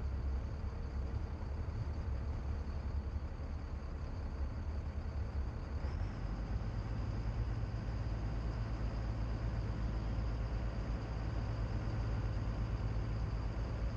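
Steady low drone of a Navy assault craft's engines, with a faint high whine above it; about six seconds in, the low note steps up in pitch as the engines change speed.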